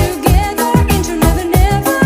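Upbeat pop/dance background music with a steady beat of about two kick-drum strokes a second under a wavering melody line.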